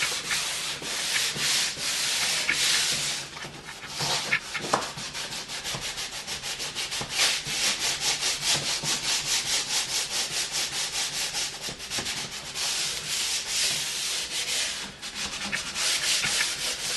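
Sandpaper rubbed by hand over a wooden window sill in quick back-and-forth strokes, a few a second, with brief pauses. The sanding roughs the surface so glue will adhere.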